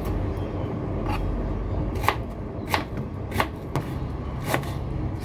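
Kitchen knife cutting an onion on a chopping board: a few sharp, irregular knocks of the blade through the onion onto the board, over a low steady hum.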